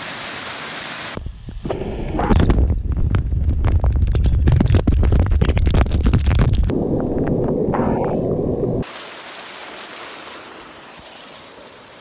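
A small waterfall rushing steadily. About a second in, the falling water starts pounding on a GoPro held in the falls: a loud, muffled rumble crowded with sharp knocks, which gives way about seven seconds in to a softer muffled wash. Near the end the even rush of the waterfall returns, quieter.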